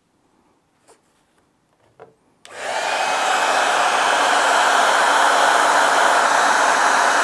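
Two faint clicks, then a hair dryer switches on about two and a half seconds in, its motor winding up and then blowing steadily and loudly. It is warming the leather of the work gloves so the Sno-Seal wax melts in.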